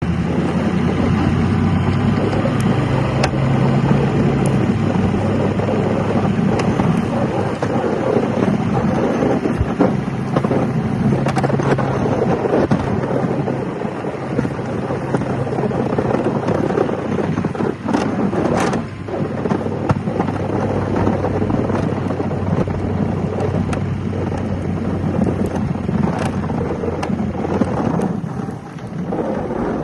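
Diesel plow truck's engine running steadily under load, with the continuous rush of deep snow rolling off the plow blade. A few sharp knocks come about 18 seconds in.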